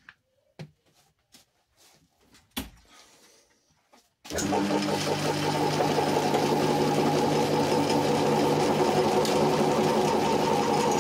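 A few light clicks and knocks, then about four seconds in a metal lathe switches on and runs steadily, its chuck spinning the worm gear that is about to be bored out with a drill.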